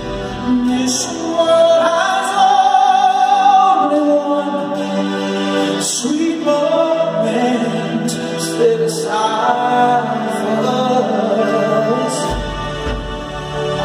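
Live arena performance of a slow rock ballad, recorded from the crowd: a male lead singer holds long notes with vibrato over sustained backing chords. A deep bass note comes in near the end.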